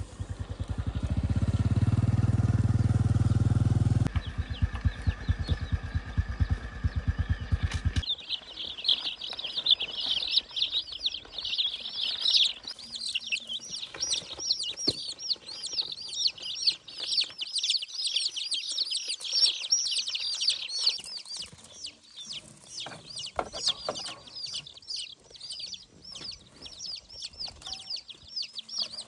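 A motorcycle engine idling, louder for the first few seconds, then switched off about eight seconds in. After that, a crowd of baby chicks peeping nonstop in fast, high cheeps, thinning out somewhat in the last third.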